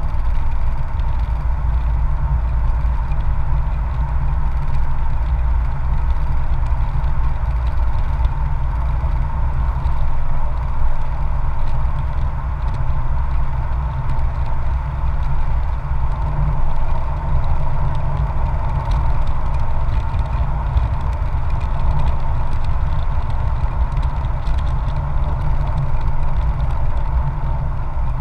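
Motorcycle engine running steadily at cruising speed, heard on board the moving bike, with wind rushing over the microphone.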